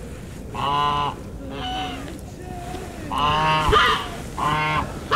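Geese honking: a series of loud, repeated calls, the longest and loudest in the second half, a racket.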